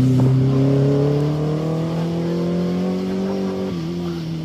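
A 600cc mini sprint's motorcycle-derived engine running hard at high revs, its pitch climbing slowly. The pitch dips briefly a little under four seconds in, and the sound slowly fades.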